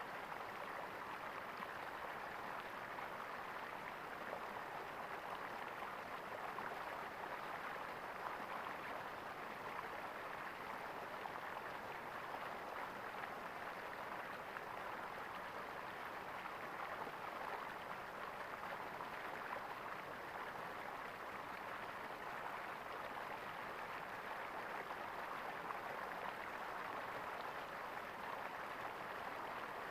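Water gurgling steadily, a continuous even rush with no change in level.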